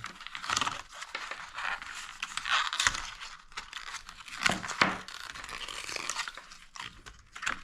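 Paper and cardboard packaging of an Apple Watch box being torn open and handled: irregular tearing, crinkling and crunching, with a few sharper rips.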